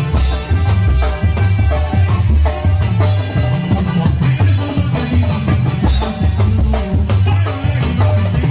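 Live tamborazo band playing a cumbia: a steady drum beat and pulsing bass under held melody lines from keyboard and horns.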